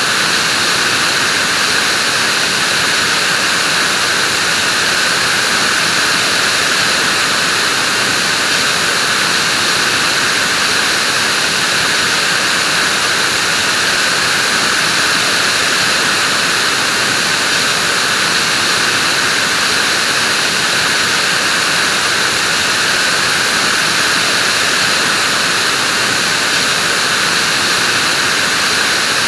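Vacuum cleaner running steadily: an even, unbroken whooshing drone that is strongest in its upper-middle hiss.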